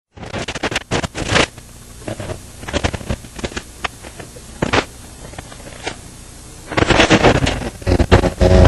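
Irregular clicks, knocks and scrapes close to the microphone, getting louder and denser about seven seconds in.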